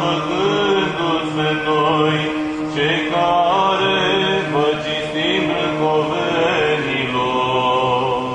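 Orthodox Byzantine chant: a voice sings a slow melody over a steady held low drone (ison).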